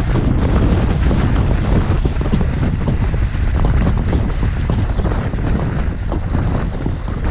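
Wind rushing over the microphone of a camera carried down a ski slope, with the steady hiss and scrape of sliding over snow.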